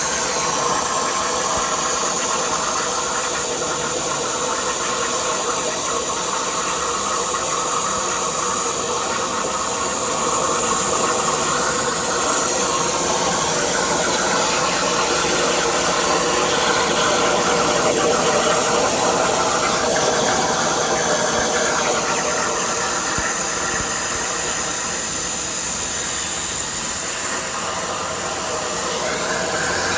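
CNC plasma cutter torch cutting metal plate: a loud, steady hiss from the plasma arc and its compressed-air jet, with faint machine hum beneath.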